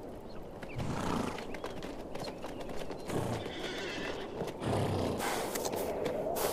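Feral Namib desert horses: hooves clopping on stony ground, with three short, low calls from the horses about one, three and five seconds in.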